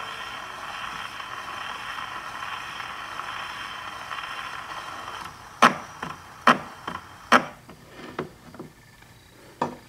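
Surface hiss from the needle of an acoustic 78 rpm phonograph riding the shellac record with no music playing, heard through the horn. About five and a half seconds in, a string of sharp knocks and clicks follows as the sound box is lifted off the record and the tone arm is moved.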